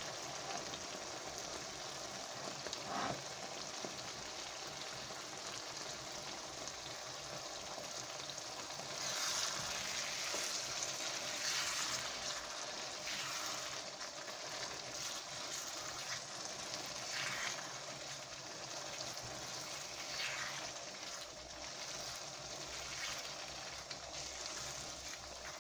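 Lentil and tomato curry sizzling and bubbling in a small frying pan while a silicone spatula stirs it now and then. The sizzle swells for a few seconds about nine seconds in.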